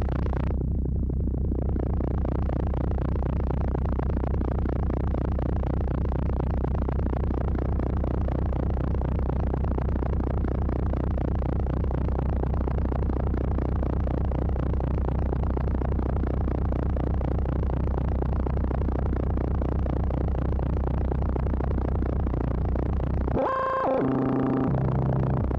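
Qun mk2 synthesizer playing a noisy electronic drone: a steady low hum under a rough, pulsing noise, with the top end briefly cut off just after the start. Near the end a short run of stepped tones jumps up and then down.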